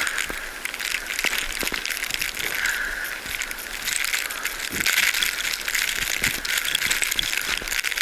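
Crackling, rattling noise full of small clicks on a GoPro Hero 3 in its case, jostled while carried through a blizzard.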